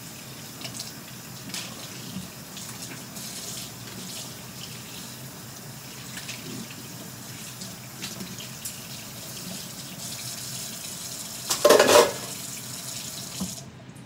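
Kitchen faucet running into a stainless steel sink while dishes are rinsed, with light clinks of dishware. A loud clatter comes about 12 seconds in, and the running water cuts off suddenly near the end.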